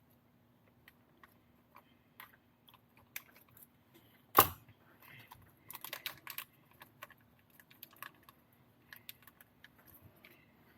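Scattered small clicks and taps of RC kit parts, screws and nuts being handled on a table. There is one louder sharp click about four seconds in and a quick run of clicks around six seconds.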